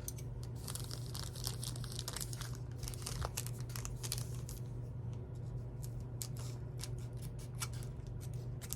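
Trading-card pack wrapper crinkling and tearing as it is cut and worked open: a run of small, scattered crackles over a steady low hum.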